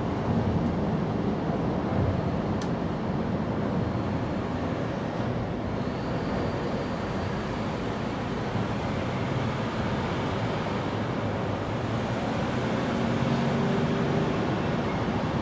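Steady low rumbling background noise, with a faint hum and a slight rise in level near the end.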